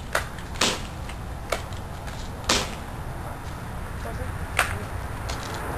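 BB pistol firing: three sharp pops about two seconds apart, with fainter clicks between them.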